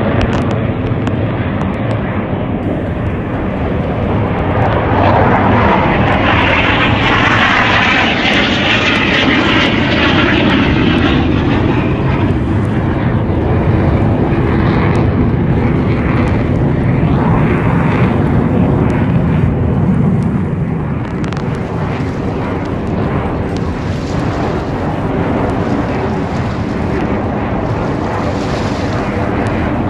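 Aircraft engine noise from an aircraft flying past. It swells to its loudest a few seconds in and stays strong, then a falling low tone is heard and it eases off somewhat in the last third.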